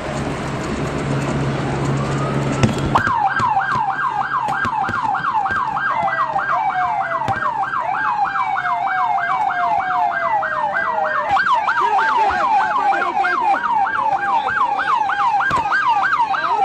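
Emergency vehicle siren: a rising wail for the first three seconds, then switching abruptly to a fast yelp of about three to four sweeps a second. A second siren sweeps more slowly and faintly behind it.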